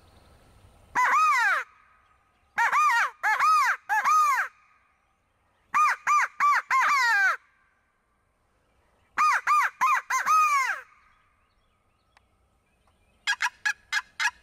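Mouth-blown crow call used as a turkey locator, sounding loud caws in four series: one caw, then three, then four, then four, with pauses between. About a second before the end a turkey gobble starts, a fast run of short rattling notes.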